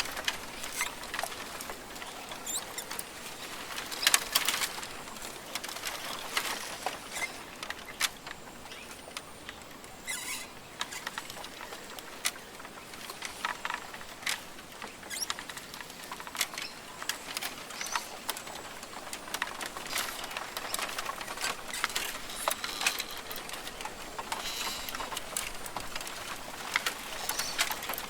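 Rainforest ambience: a steady hiss full of scattered sharp ticks and patters, a burst of them about four seconds in, with occasional bird calls.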